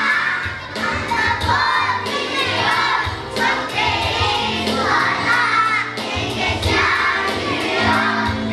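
A group of young children singing together as a choir over backing music with a steady beat.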